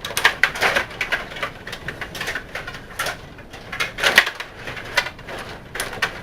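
Table hockey game in fast play: a rapid, irregular clatter of sharp clicks and knocks as the puck strikes the players and boards and the rods are pushed and spun.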